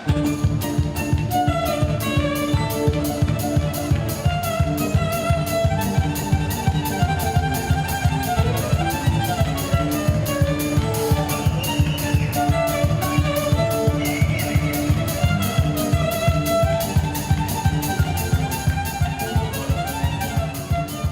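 Background music with a steady, fast beat and a violin-like melody line.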